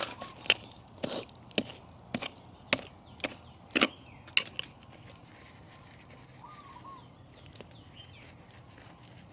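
Sharp knocks and clicks, about two a second, from garden work with a hand tool; they stop about four and a half seconds in.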